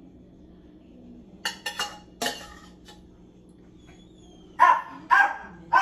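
A dog barking three times in quick succession near the end, about half a second apart. A few short clatters come about a second and a half in.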